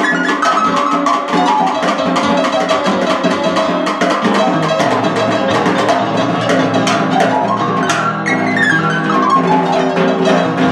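Snare drum and cymbal played with sticks in quick strokes over a pitched electronic keyboard backing. Runs of notes step downward near the end.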